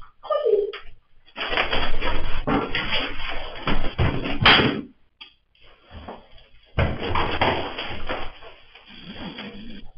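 Scuffling, rustling and knocking of a thrashing green iguana being grappled against a padded jacket and heavy gloves, in bursts with short pauses between them.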